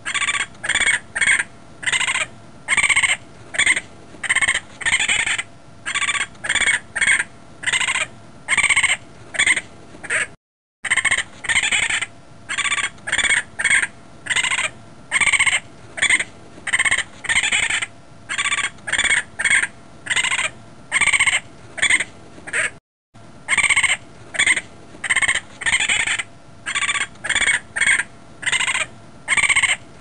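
Raccoon calling in a fast series of short, high calls, two or three a second. The series breaks off twice for a moment of silence before starting again.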